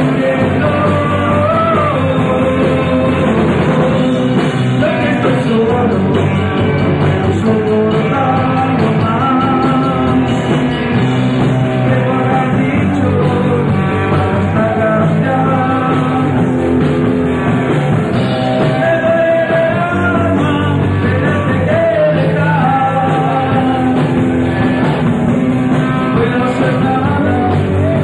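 Live rock band playing a loud song with guitars, bass and drums, with a wavering melody line over the band. Recorded from among the audience, so the sound is dense and boomy.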